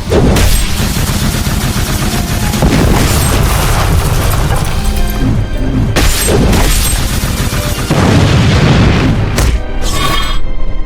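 Dense, loud battle sound effects: heavy booms and impacts over background music. Sharp hits stand out at the start, about six seconds in, and near the end.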